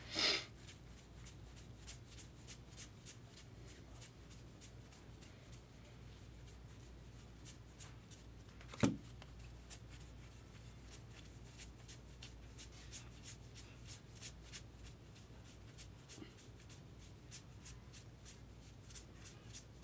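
A stack of 2024 Bowman paper baseball cards being flicked through one by one, a long run of quick, soft card clicks and slides over a low steady hum. One louder knock comes about nine seconds in.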